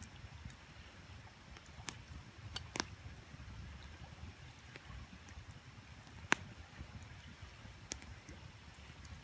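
Wood campfire crackling, with a few sharp pops, the loudest about six seconds in, over the low steady rush of a flowing creek.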